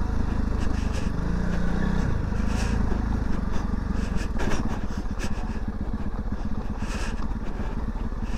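Honda CRF300 Rally's single-cylinder four-stroke engine running as the bike is ridden along a rough track, with a few sharp knocks over the ride.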